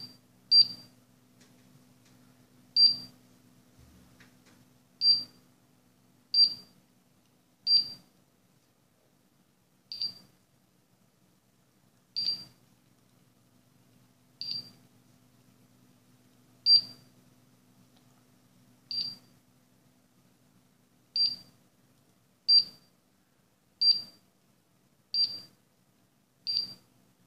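Escornabot robot running a programmed sequence of moves: its buzzer gives a short high beep at each move, about fifteen in all, spaced one to two seconds apart. Between the beeps its small wheel motors give a faint low hum as it turns.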